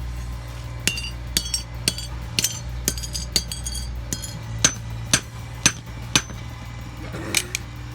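Hammer blows striking a broken-open alarm clock and its loose parts, each a sharp knock with a short high ring. About seven quick, uneven strikes in the first half, then four louder ones about half a second apart.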